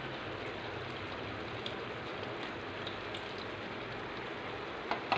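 Vegetables sizzling steadily in a hot steel kadai on a gas stove after tamarind water has gone in. A couple of light clicks come near the end.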